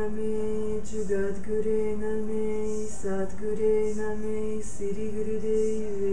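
Devotional mantra music: a voice sings long held notes over a steady low drone, with short breaks where the note changes.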